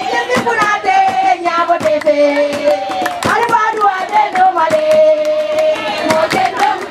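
Group of women singing a held, gliding call-and-response melody, accompanied by repeated hand claps.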